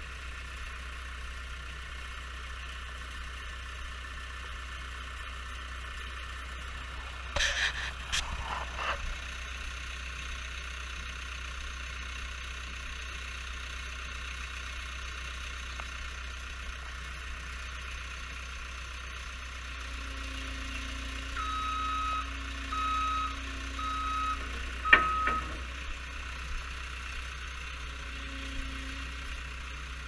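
Cat 262B skid steer's diesel engine running steadily, with a brief metallic clatter about a third of the way in. Later its backup alarm beeps four times as it reverses, ending in a sharp knock.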